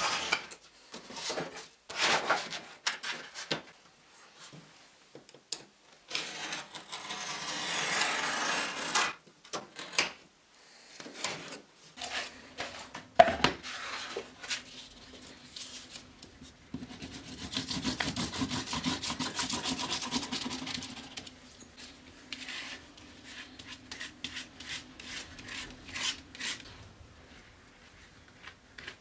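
Wood veneer being cut and handled on a cutting mat: a knife drawn through the veneer along a steel rule, sheets slid and set down, and glue scraped across a plywood board with a notched spreader. There are two longer stretches of steady scraping, a few seconds each, and a sharp knock about 13 seconds in is the loudest sound.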